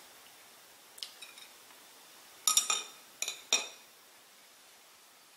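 Eating utensil clinking against a dish of bread pudding: a faint tap about a second in, then a quick cluster of about four sharp, briefly ringing clinks.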